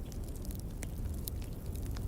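Wood fire crackling with irregular sharp pops and snaps over a steady low rumble of wind.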